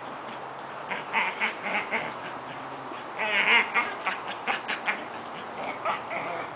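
Dog whining in a series of short, high-pitched, wavering cries, frustrated at a ball stuck out of reach in the swing's mesh.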